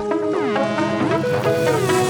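Electronic dance music in a breakdown: the kick drum drops out and synth notes hold and slide up and down in pitch.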